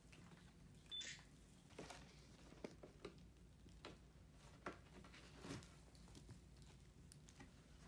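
Near silence with faint, scattered taps and rustles of kittens pawing and climbing on cardboard and tinsel graduation decorations, a slightly louder rustle about a second in.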